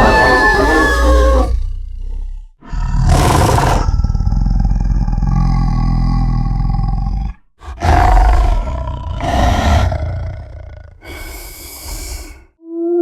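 Beast of Gévaudan creature sound effect: a series of deep, wolf-like roars. A roar about three seconds in runs into a long, low growl. Three shorter roars follow in the second half.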